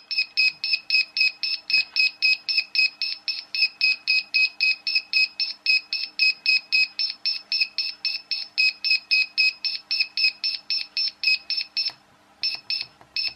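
Digital clock kit's on-board buzzer beeping rapidly, about four short beeps a second, each beep one step of the alarm-minutes setting while the button is held down. The run breaks off briefly near the end, then a few more beeps follow.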